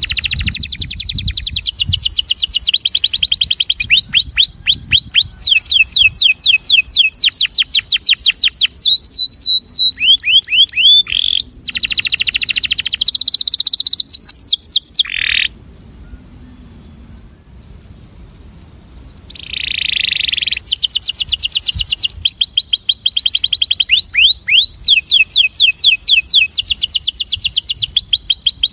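Male domestic canary singing its breeding song: fast trills of repeated down-slurred notes, phrase after phrase at changing speeds. The song breaks off for a few seconds about halfway through, restarts with a short buzzy note, then the trills carry on.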